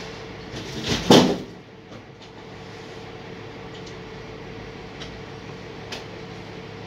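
Steady mechanical hum of container-handling machinery running, broken about a second in by one loud, heavy clank as the steel shipping container is shifted, with a couple of faint knocks later on.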